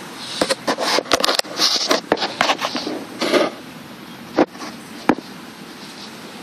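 Rustling clothes and shuffling of a congregation of worshippers shifting as they kneel in prayer, with scattered clicks and knocks. The rustling is busiest in the first three and a half seconds, then gives way to steady room noise broken by two sharp clicks.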